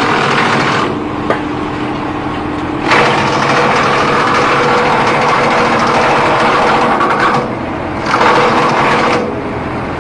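Disc wood chipper running steadily, growing louder and noisier in stretches as wood goes through it: briefly at the start, for about four seconds from three seconds in, and for about a second near the end.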